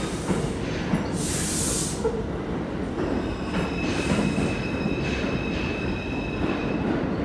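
New York City subway train running past on the track beyond the columns: a steady rumble of wheels on rail, with a brief hiss about a second in and a thin, steady high squeal in the second half.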